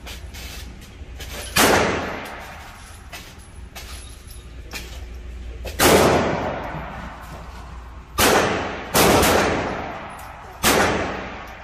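Five handgun shots fired at uneven intervals, two of them under a second apart, each followed by a long echoing decay in the enclosed indoor range. Fainter shots sound between them.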